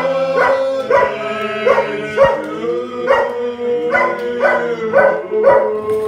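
Dog howling with long held notes, broken by short sharp barks or yips about twice a second.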